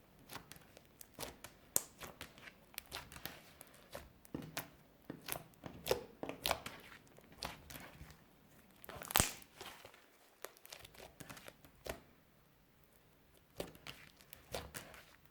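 Clear slime with crushed eyeshadow mixed in, stretched, squeezed and folded by hand, making irregular sticky clicks, crackles and air-bubble pops. The loudest pop comes about nine seconds in, followed by a few quieter seconds before the squishing picks up again.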